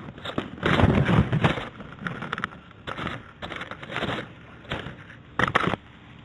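Irregular rustling and scraping, loudest about a second in, with smaller bursts after it and a short sharp burst near the end.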